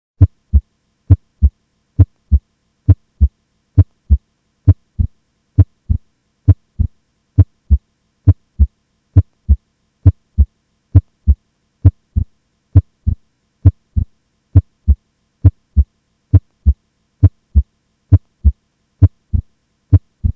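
Normal human heart sounds, S1 and S2 beating as paired thuds about 70 times a minute. On some beats every several seconds the second sound splits into two close thuds: the normal splitting of S2 during inspiration. A faint steady hum sits underneath.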